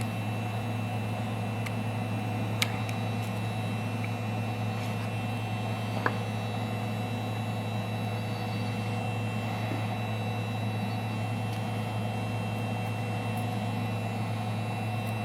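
Electric heat gun running steadily, its fan motor giving a constant low hum with a thin high whine, while it warms the phone's screen adhesive. Two faint clicks come through, one a few seconds in and one about six seconds in.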